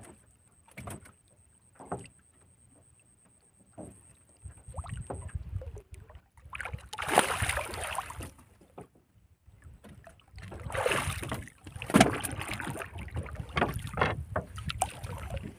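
Water splashing and lapping against the side of a small wooden boat, in two longer splashes, one about halfway through and one a few seconds later, over a low rumble that starts about four seconds in. Before that it is quiet apart from a few light knocks.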